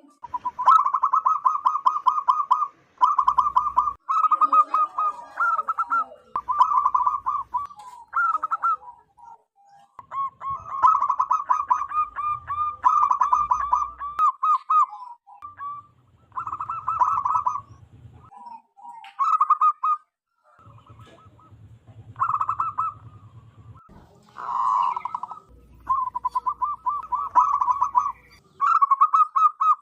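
Zebra dove (perkutut) cooing in a loud, strong voice: repeated phrases of rapid staccato coos, each a second or two long, one after another with short pauses.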